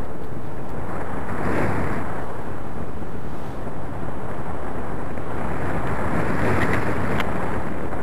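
Airflow rushing over the camera microphone of a paraglider in flight: a steady wind roar that swells about a second and a half in and again around six to seven seconds.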